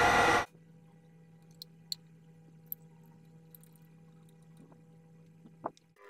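A milling machine running loudly with a steady whine, cut off abruptly about half a second in. After that there is only quiet room tone with a faint low hum and a few small clicks.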